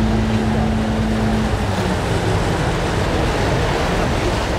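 Vaporetto waterbus engine running underway, with water rushing along the hull. A steady low hum stops about a second and a half in.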